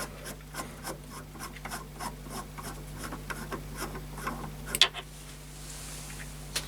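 A freshly cut screw thread being turned by hand in its mating threaded bore: a run of small scraping clicks, about four a second, with one sharper click near the end, over a faint steady hum.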